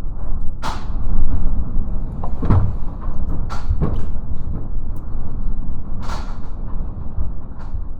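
Typhoon-force wind buffeting the microphone in a loud, continuous low rumble. About six sharp knocks and rattles cut through it at irregular moments.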